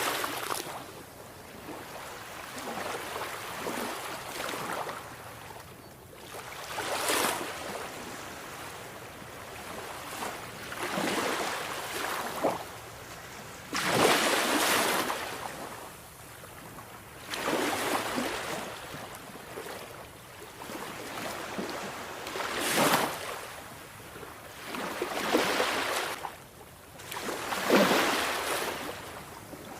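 Sea waves breaking and washing in, the surf swelling and falling away every few seconds.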